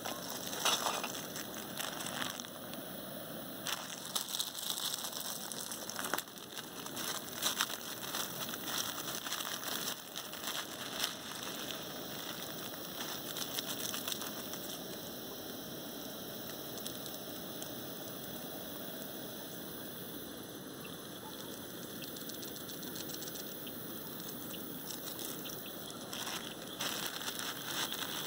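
Crinkling and crunching of a plastic instant-ramen packet and seasoning sachet being handled and torn open, in clusters through the first ten seconds or so and again near the end, over a steady hiss from a gas canister stove heating a pot of water.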